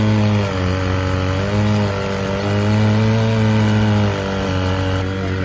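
An engine running under varying load, its pitch stepping down and back up several times as it slows and recovers.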